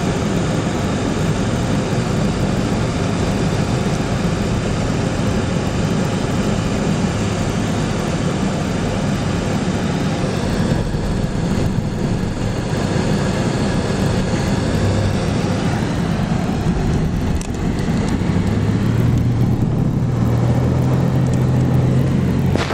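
Steady engine and road noise of a van driving on a highway, heard from inside the cabin. A low steady hum strengthens near the end.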